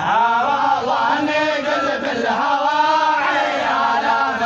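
Bedouin samra folk chanting: voices singing long, drawn-out lines of verse together without a break.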